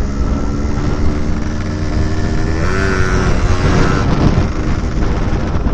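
Yamaha RX-King's single-cylinder two-stroke engine running while riding, through an exhaust whose stock silencer baffle has been cut short and replaced with iron pipes, making it noisy; the engine pitch rises briefly about two and a half seconds in, with wind on the microphone.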